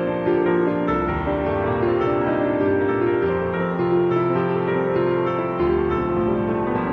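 Background music, a piano-led instrumental playing steadily.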